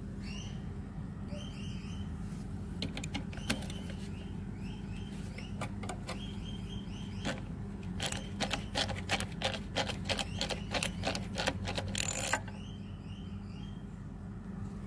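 A hand socket driver clicking sharply as it works a bolt loose on an old lawnmower engine's throttle control bracket, a run of about three to four clicks a second, ending in a brief louder scrape. A small bird chirps repeatedly in the background.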